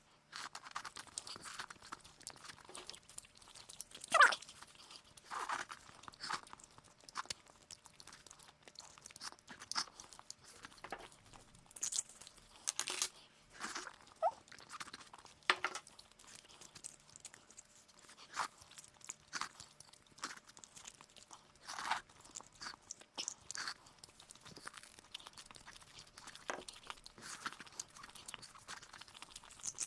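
Close-miked eating of bone marrow: irregular wet crunches and chewing sounds, a sharp crunch about four seconds in being the loudest.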